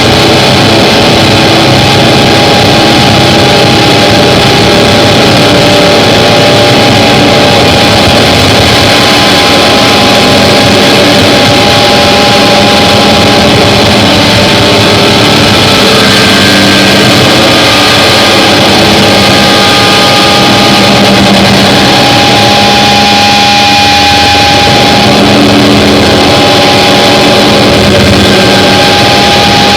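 Harsh noise music: a very loud, unbroken wall of distorted noise, with a few held drone tones fading in and out through it.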